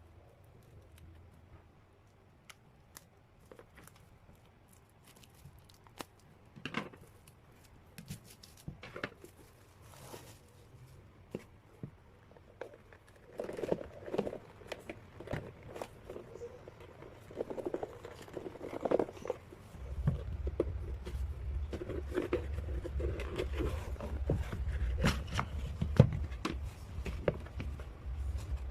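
Sealed albums being opened by hand: scissors snipping, and plastic shrink-wrap and packaging crinkling and tearing, with scattered clicks and knocks. A low rubbing rumble joins in about two-thirds of the way through.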